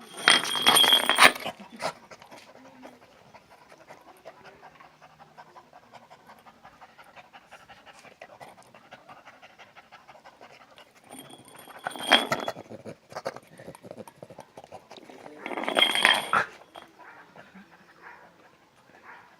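A dog panting, with three loud, noisy bursts of about a second each: one at the start, one about twelve seconds in, and one about sixteen seconds in.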